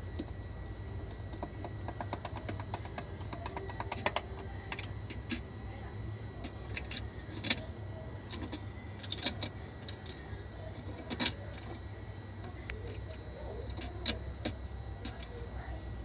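A screwdriver working the screws at the metal hub of an LG top-loading washing machine's pulsator: a run of quick, even clicks in the first few seconds, then scattered sharp metallic clicks and taps.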